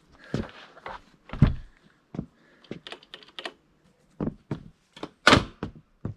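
Irregular knocks, thunks and light clicks of metal bike parts and tools being handled during e-bike assembly, about a dozen in all, with the heaviest knocks about a second and a half in and about five seconds in.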